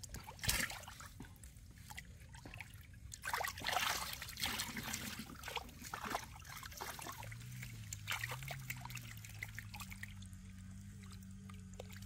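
Fish splashing and thrashing in shallow muddy water over trickling water, in irregular bursts; the biggest splashes come about half a second in and around three to four seconds in. A low wavering hum joins a little past halfway.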